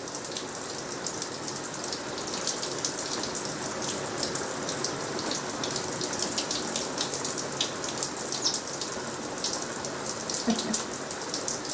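Running shower: a steady spray of water splashing in a shower stall, with a fine patter of drips and splashes through it.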